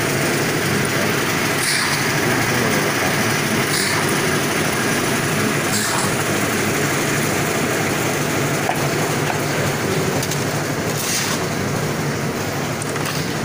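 An engine-driven drum concrete mixer runs steadily, a loud constant engine hum with churning noise. Brief hissy scrapes come every couple of seconds.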